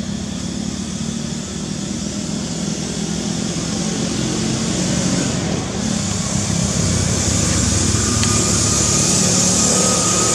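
A motor vehicle's engine running steadily, with a hiss high up, growing gradually louder over the second half.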